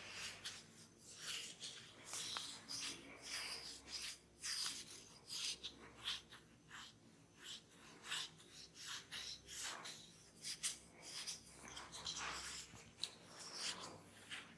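Hands rubbing and scratching through hair and scalp during a head massage: a run of short, quick rustling strokes, a few each second.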